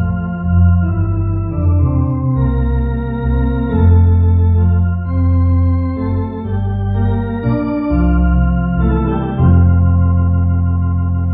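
Two-manual electronic organ playing a slow hymn in full, sustained chords over a deep bass line, the harmony changing about once a second.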